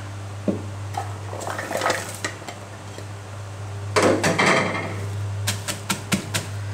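Shallots and garlic tipped into a clay mortar with a rattle about four seconds in, after a few clinks of the plate. In the last second or so a wooden pestle starts pounding them in the mortar with regular knocks, about four a second, over a steady low hum.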